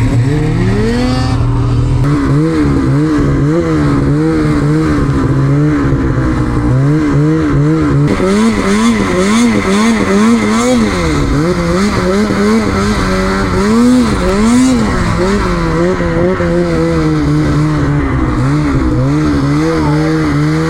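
Snowmobile engine running hard, its pitch rising and falling over and over as the throttle is worked through deep snow. It starts suddenly and loud.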